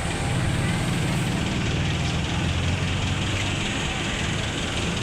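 Bus engine running steadily: a low rumble with an even hiss above it.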